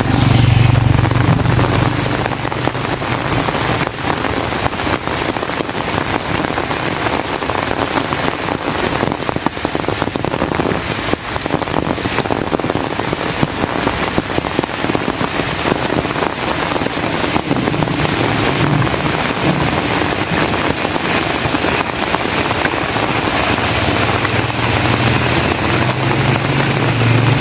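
Heavy rain falling steadily, a dense patter of drops. A low rumble sits under it in the first couple of seconds and builds again near the end.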